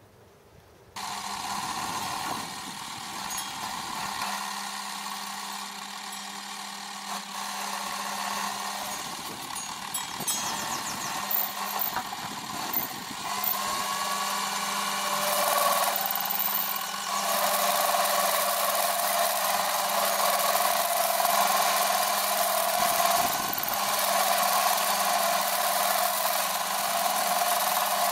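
Metal lathe switching on about a second in and running with a steady motor hum, then the turning tool cutting the spinning cast aluminium pillow block. The cutting noise grows louder from about fifteen seconds in.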